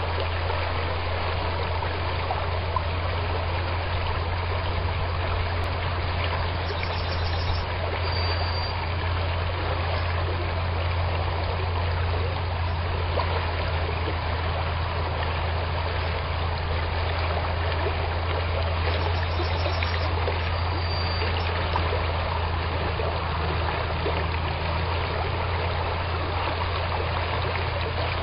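River flowing: a steady, unbroken rush of running water.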